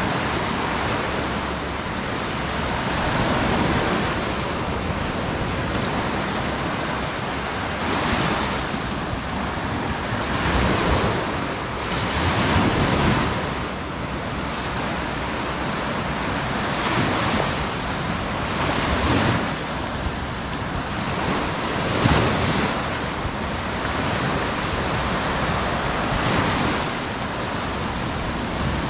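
Sea waves washing onto a beach, a steady rush of surf that swells every few seconds as each wave breaks.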